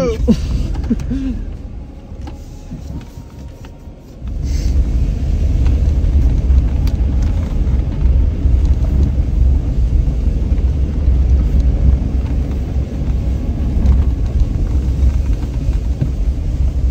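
Pickup truck driving, heard from inside the cab: a steady low rumble of engine and tyres on an unpaved road. It is quieter for the first few seconds, then suddenly louder from about four seconds in.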